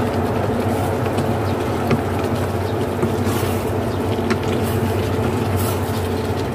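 A steady electric fan hum runs throughout. Over it, a wooden spatula scrapes and taps against the pan as a thick chicken and vegetable curry is stirred.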